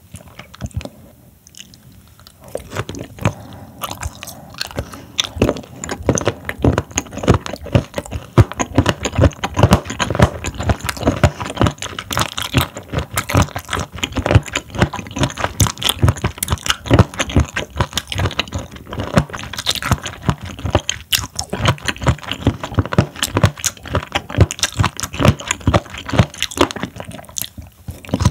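Close-miked chewing of raw seafood: a dense, steady run of short chewing clicks, softer for the first two or three seconds.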